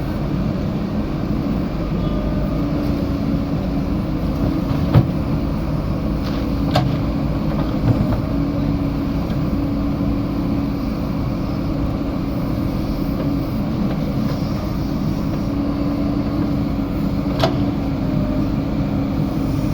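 JCB 3DX backhoe loader's diesel engine running steadily as the machine works, with a few sharp knocks: about five, seven and eight seconds in, and once more near the end.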